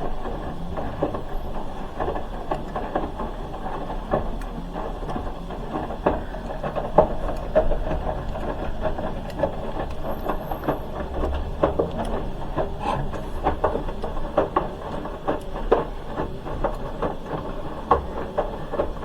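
Hoover H-wash 300 Plus front-loading washing machine tumbling its wash load. The drum turns with a dense, irregular run of small knocks and clicks over a low rumble, then stops near the end.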